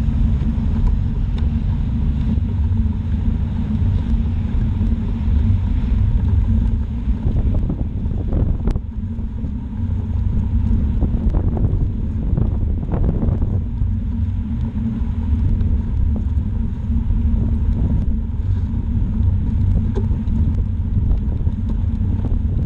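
Steady low rumble of wind and road noise on a bicycle-mounted camera's microphone as the bike rolls along a wet road. There are a few brief louder swells in the middle.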